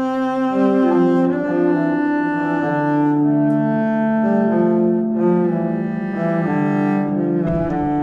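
Background music: slow, held notes layered into chords that shift every second or so.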